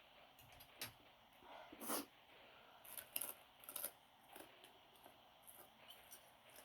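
Faint close-up eating sounds: chewing, with a scatter of small sharp clicks and smacks, the loudest about two seconds in and a cluster around three to four seconds in.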